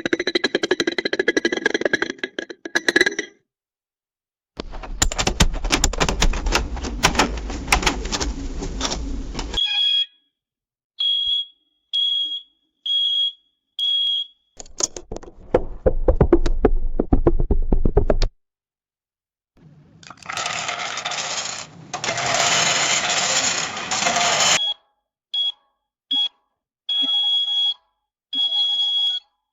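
Sound-effect compilation of money sounds, with coins jingling and clattering in several bursts, alternating with runs of short, evenly spaced high electronic beeps.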